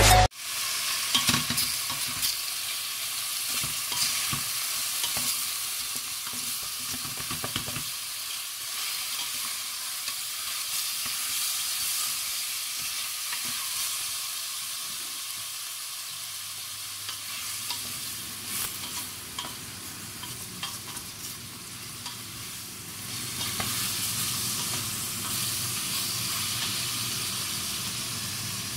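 Chunks of meat frying and sizzling in a stainless steel pot, stirred with a wooden spatula that scrapes and knocks against the pot.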